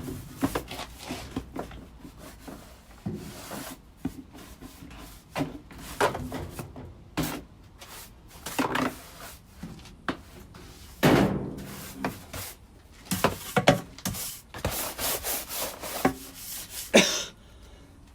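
Irregular scraping and rubbing strokes with a few sharper knocks, as a clothes dryer's lint vent duct is handled and worked back onto its connection.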